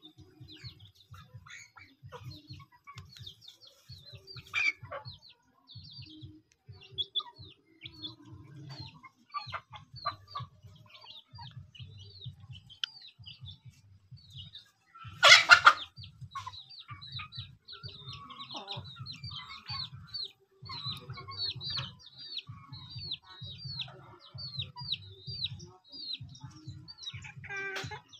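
Free-range chickens clucking, with rapid high chirping, several chirps a second, going on throughout and one loud harsh squawk about halfway through.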